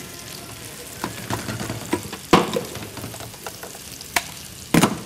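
Cookware and utensils being handled on a gas hob: scattered knocks and clinks over a faint steady hiss, with a sharp knock about two seconds in and a quick cluster near the end.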